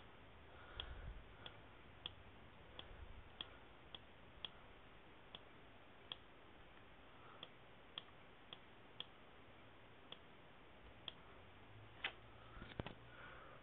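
Near silence: faint room tone with light, sharp ticks about once a second, unevenly spaced, and a few faint low knocks near the end.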